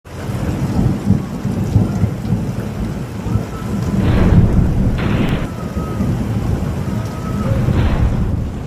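Heavy rain pouring in a strong wind, with a deep rumble running under the hiss.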